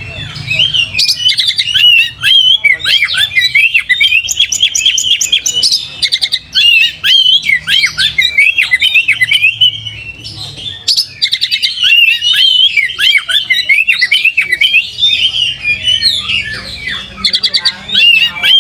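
Oriental magpie-robin singing a long, varied song of whistles, chirps and fast rattling trills, with a few short breaks; its song carries the sikatan londo (flycatcher) style that keepers prize.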